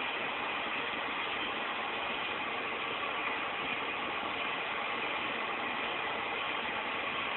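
Steady background hiss and hum with no distinct events.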